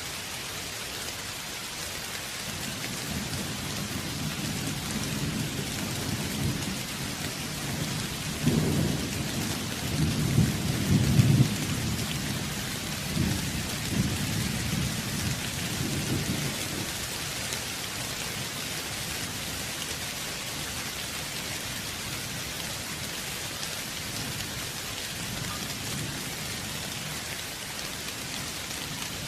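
Steady rain with a rumble of thunder that builds a few seconds in, swells loudest about a third of the way through, and dies away by the middle.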